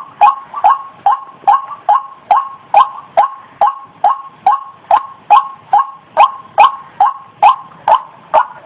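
White-breasted waterhen (ruak-ruak) giving its repeated 'kru-ak' call, about two and a half calls a second in an even, loud rhythm, each call a sharp downward note settling on two steady pitches; the series stops abruptly near the end.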